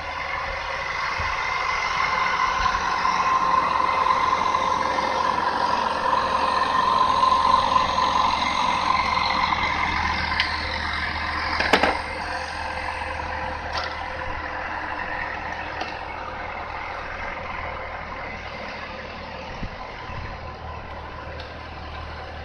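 A motor vehicle engine running steadily in the background, growing louder over several seconds and then slowly fading. A single sharp click comes about halfway through.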